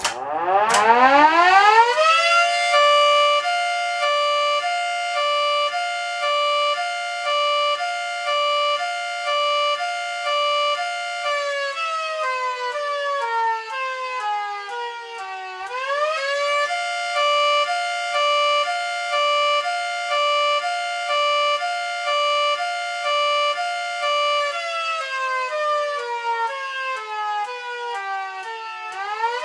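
Miniature model of a Federal Signal 3T22 rotating siren winding up to full pitch, then holding a chord that switches between a high and a low tone about once a second. Twice it winds partway down and sweeps back up to the alternating high-low tones.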